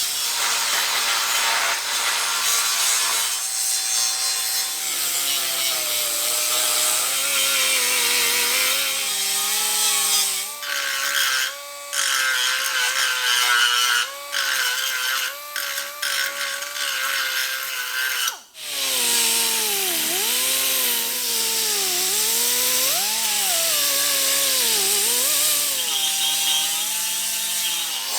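Power grinder working on the sheet-steel patch panel of a trunk lid. Its whine sags and rises in pitch as it is pressed into the metal and eased off, and it stops briefly a few times, most sharply about two thirds of the way in.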